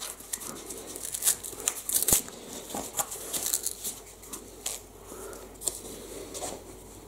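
Cardboard packaging of a flat-pack box being torn open by hand, the glued flap pulled back: irregular ripping and crackling of cardboard, busiest in the first two seconds and sparser after.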